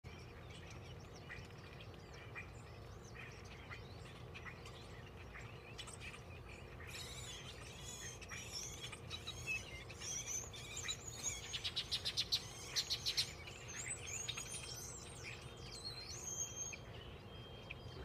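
A chorus of birds chirping and calling from a palm tree, sparse at first and much busier from about seven seconds in. Midway there is a quick run of repeated chirps, over a faint steady low rumble.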